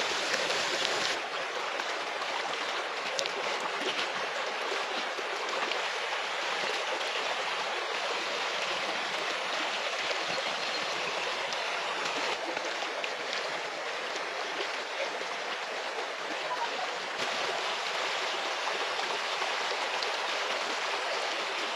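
Fish frying in hot oil, sizzling and crackling, for about the first second; then a rocky river's water rushing steadily.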